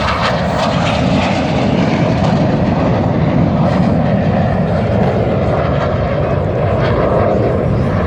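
Jet noise from the Red Arrows' BAE Hawk jets flying the display at full power: a loud, steady rushing noise with little change over the seconds.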